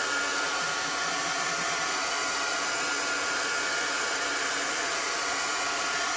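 Handheld dryer blowing steadily, a constant rush of air with a faint high whine, drying wet chalk ink on a canvas.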